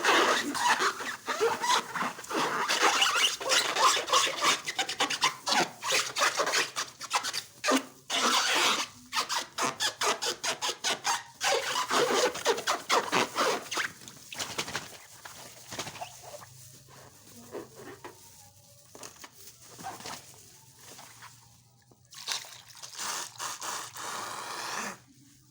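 Rubber balloons and slime being handled: continuous rubbing and squeaking with quick runs of crackling clicks, dense through the first half, then sparser and quieter.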